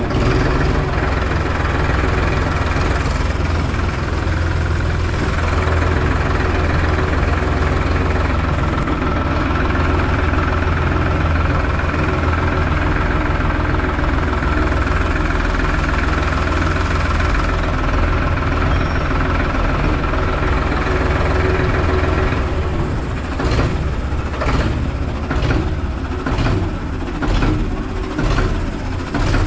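Ford 3600 tractor's three-cylinder diesel engine running steadily through its tall vertical exhaust stack as the tractor drives. In the last several seconds the engine note turns uneven, with repeated short surges.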